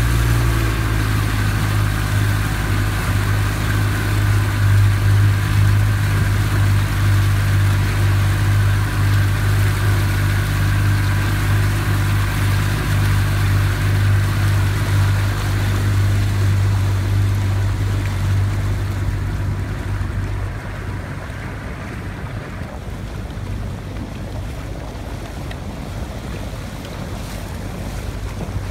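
A boat's engine hums steadily under way, with water rushing in the wake and wind on the microphone. About twenty seconds in, the engine eases off and the level drops as the boat slows, leaving mostly lapping water and wind.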